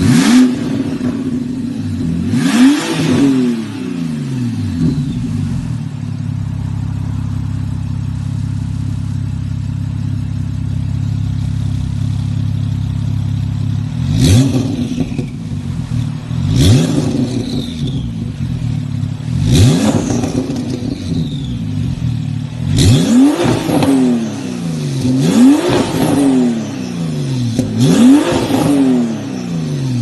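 Porsche 997.2 Turbo's flat-six engine, fitted with a Fi valvetronic cat-back exhaust and catless downpipe, idling and revved in sharp throttle blips, each a quick rise and fall in pitch. There are about eight blips: two at the start, then a long stretch of steady idle, then six more in quick succession.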